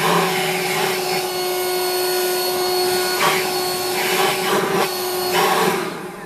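Leaf blower running steadily at full power, a motor whine over rushing air, blasting wet snow off small evergreen shrubs. The sound fades away near the end as the blower is shut off.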